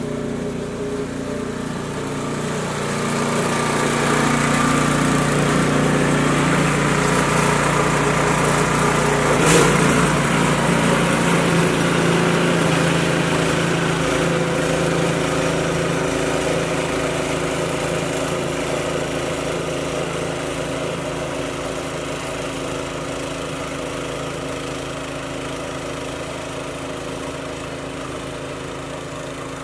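Snowblower engine running steadily as the machine is pushed along a driveway, growing louder as it passes close and then slowly fading as it moves away. A single sharp knock about ten seconds in.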